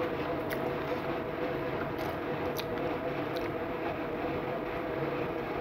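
Steady mechanical hum with a faint steady tone in it, such as room machinery gives. Over it come a few faint short clicks of someone eating a hamburger, about half a second in and three more between two and three and a half seconds in.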